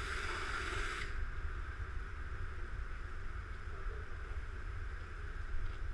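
High-pressure car wash wand spraying water with a steady hiss that cuts off suddenly about a second in, as the trigger is released. A low rumble continues underneath.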